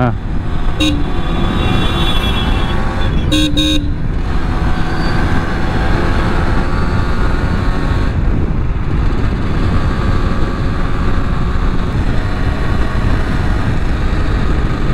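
Yamaha RX135 single-cylinder two-stroke motorcycle engine running under way, with steady road and wind noise. A vehicle horn gives a short toot about a second in and two more quick toots around three and a half seconds.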